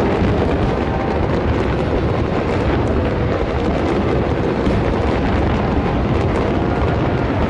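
Aerial fireworks going off without a break: a steady, dense rumble of bursts with fine crackling over it.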